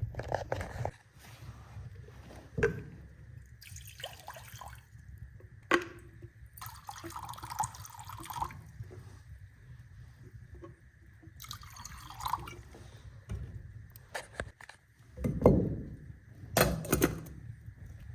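Water being poured and splashing into a pot, among irregular knocks and clatter of handling, with two heavier thumps near the end.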